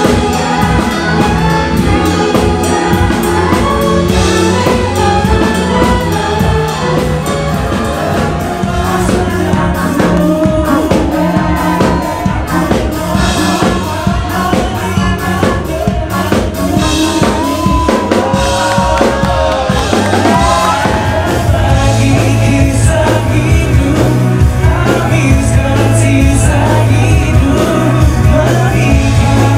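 Live band music: a woman singing a melodic pop song over drums and bass guitar.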